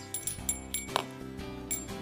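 Instrumental background music: held notes over a light jingling percussion beat.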